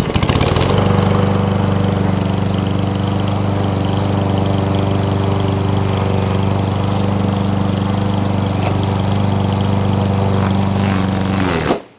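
Walk-behind gasoline rotary lawn mower running steadily at an even pitch while being pushed across grass. It cuts off suddenly near the end.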